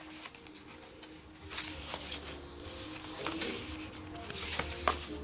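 A cardboard phone box handled and turned over in the hands: the cardboard rubs and scrapes against the fingers in swells, with a few light taps and clicks near the end.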